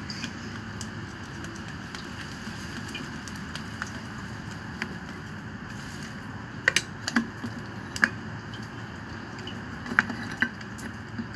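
Scattered light clicks and taps from a screwdriver working the terminal screws in a peripheral water pump's wiring box, most of them in the second half, over a steady background hiss.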